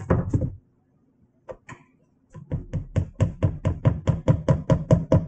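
Measuring cup knocking against the rim of a metal mixing bowl to shake out the flour: a fast, even run of light knocks, about seven a second, starting about halfway in.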